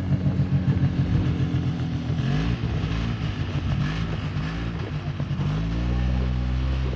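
Snowmobile engine running with a rapid pulsing beat. Its pitch rises about two seconds in and again near the end as it revs up.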